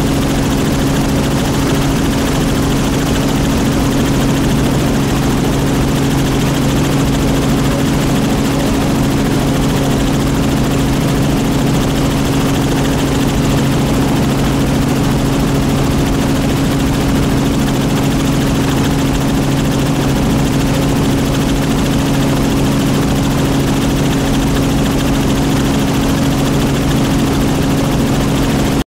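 Helicopter engine and rotor running steadily: a constant, loud hum with two low steady tones, unchanging throughout.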